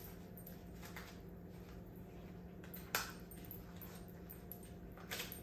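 Latex balloons rubbing and rustling softly in the hands as a smaller balloon is worked inside a larger one, with a sharp click about three seconds in and a couple more faint clicks near the end, over a steady low hum.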